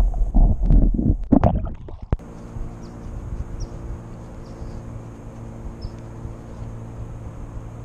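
Muffled underwater sloshing and gurgling of a largemouth bass being released, which cuts off sharply about two seconds in. After that comes a quieter, steady whir of a spinning reel being cranked to retrieve the bait.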